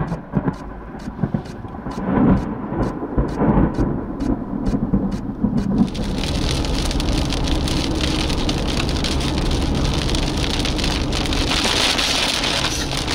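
Thunder rumbling in uneven swells for about the first six seconds. Then the sound switches abruptly to heavy rain pelting a moving car, a steady dense hiss over low road noise.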